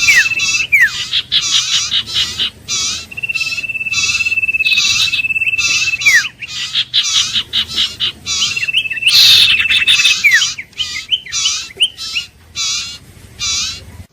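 Iora singing: long, steady, high whistles each held for a second or two and ending in a quick down-slurred note, three times, over a rhythmic run of repeated chattering notes about twice a second.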